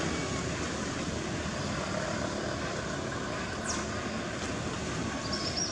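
Steady outdoor background rumble like distant traffic, with a faint falling high chirp a little past the middle and a brief high trill near the end.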